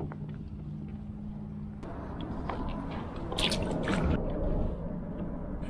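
Water lapping and gurgling around a plastic fishing kayak, with a low steady hum for the first couple of seconds and a short burst of sharp splashing about three and a half seconds in.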